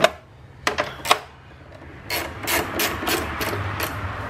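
Hand socket ratchet clicking as the car battery's terminal clamps are loosened: a sharp click at the start, a couple more about a second in, then a quick run of ratchet clicks around two to three seconds in.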